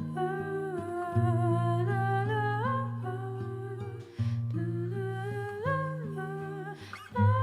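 Background music: a wordless, hummed-sounding vocal melody that slides between notes over low sustained bass notes.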